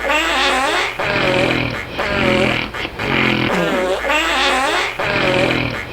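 Snoring that sounds like farting, about three breaths, one roughly every two seconds. Each breath is a wavering, fluttering buzz followed by a steadier low drone.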